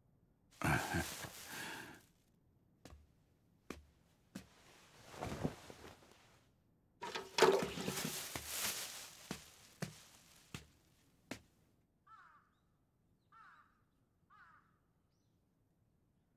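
A few loud bouts of rushing, swishing noise with scattered clicks. Then, from about twelve seconds in, a crow caws three times, each caw short and about a second apart.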